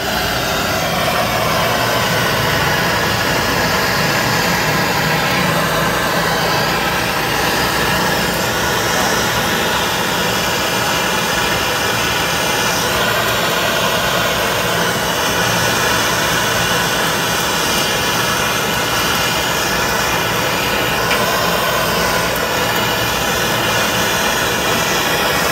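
MAP gas hand torch burning steadily, its flame making a constant rushing noise with a few faint steady tones in it, while it heats a copper pipe joint to brazing temperature.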